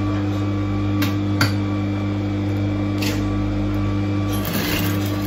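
Electric sewing machine running steadily while stitching around the edge of a fabric door mat, a constant motor hum with a few light clicks.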